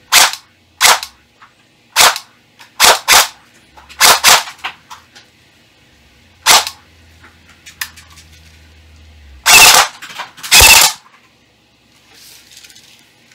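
Electric airsoft STG44 (AEG) firing: a string of short trigger pulls, then two half-second full-auto bursts about ten seconds in, its gearbox cycling at a high rate of fire.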